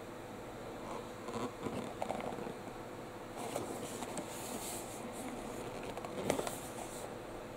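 Cardboard toy box handled and turned over in the hands: scattered rustles and light knocks of the cardboard, with a sharper knock about six seconds in, over a steady faint hum.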